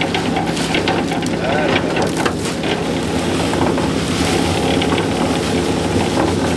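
Electric cement mixer running steadily, its motor and belt-driven drum humming under a rough churning noise as the concrete mix tumbles inside.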